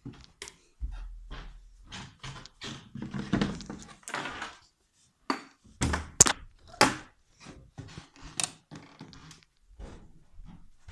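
Irregular knocks and thumps, with short rustling scrapes between them, from things being handled close by.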